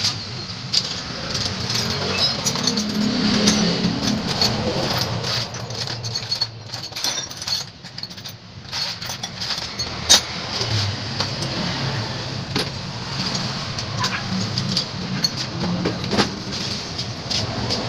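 Metal hand tools clicking and clinking as a motorcycle is worked on, with scattered sharp ticks and one louder clack about ten seconds in, over a steady background of vehicle engine and traffic noise.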